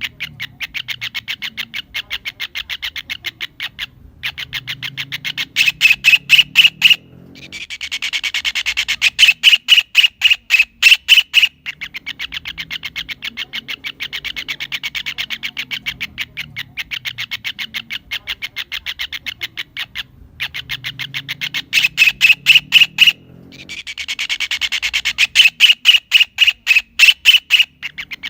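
Kingfisher calling: a rapid chattering run of sharp repeated notes, about ten a second, in phrases a few seconds long with short breaks between them, some phrases much louder than others.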